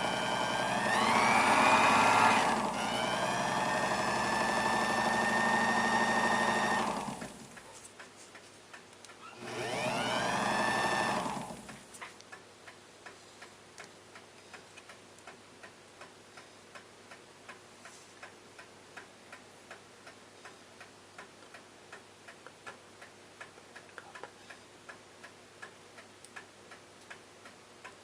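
A small motor drives the wood polisher on a clock's cone bearing. It spins up and runs steadily for about seven seconds, stops, then runs again briefly, rising and falling in pitch. After that only a clock's steady ticking is heard, faint.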